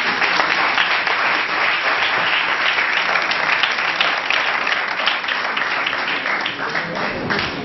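Audience applauding, steady and sustained, easing off slightly near the end.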